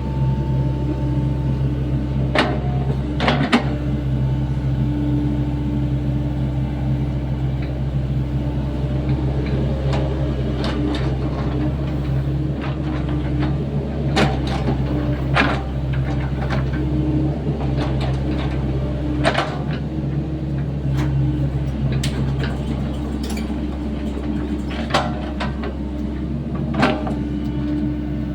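Sany SY75C mini excavator's diesel engine running steadily while it digs a trench, with scattered sharp clanks and knocks from the machine at work.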